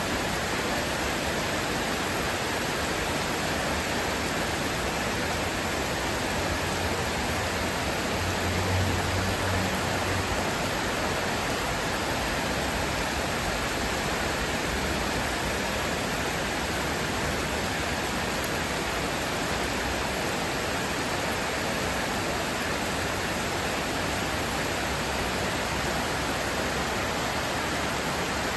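Heavy rain falling steadily, an even hiss with no let-up. A low hum rises briefly from about seven to ten seconds in.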